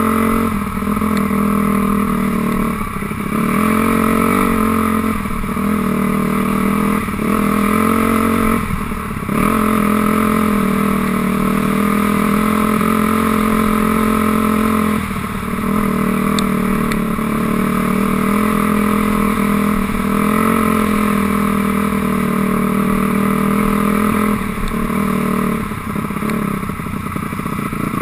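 2006 Honda CRF250R's single-cylinder four-stroke engine running under throttle, the engine note dipping briefly each time the throttle is rolled off, about every two seconds at first, once midway, and in quick succession near the end.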